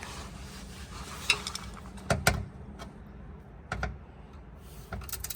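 Scattered sharp metallic clicks and knocks from hand tools and fasteners as a metal underbody panel is worked loose, over a low steady hum.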